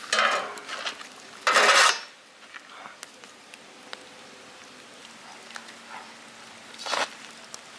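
Foil-wrapped fish lifted from hot embers and set down on a steel plate: a brief rustle and clink at the start, a louder half-second scrape of crumpled foil against metal about a second and a half in, then a single sharp click near the end.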